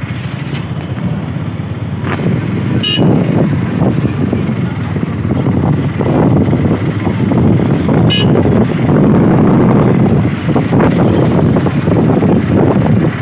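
Traffic noise and wind rushing past heard from a moving vehicle, growing louder a few seconds in, with two short horn toots, one about three seconds in and one about eight seconds in.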